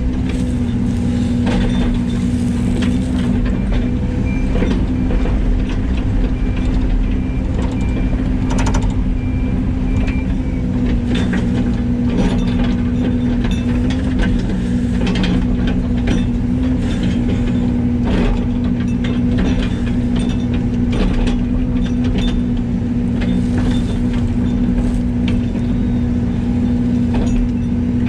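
An engine running steadily with a constant hum, with scattered light rattles and clicks over it.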